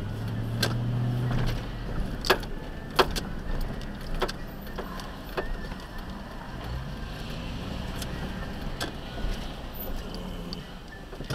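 Car engine running at low speed, heard from inside the car, with the hum strongest for the first second and a half. About seven sharp clicks and knocks are scattered through it.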